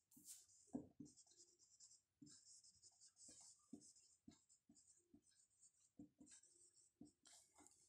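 Someone writing by hand, faint scratchy strokes with many light taps as the characters are formed.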